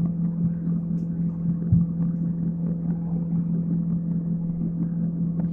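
A steady low hum with a faint rushing noise over it, unchanging throughout, and one short knock about two seconds in.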